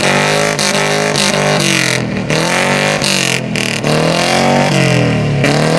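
Car engine revved up and down over and over, its pitch rising and falling every second or so, with a few brief lifts off the throttle.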